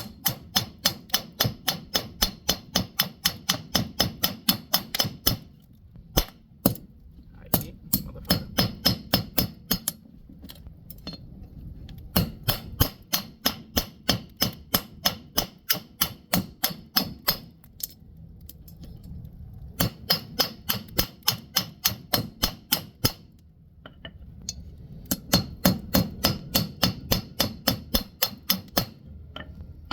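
A hand hammer striking metal on an anvil in runs of quick, ringing blows, about four a second, with a short pause every several seconds. The blows are flattening a small piece of heated metal thin.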